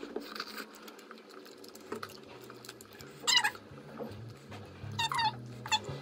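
A cat meowing: one short call about three seconds in, then two more near the end.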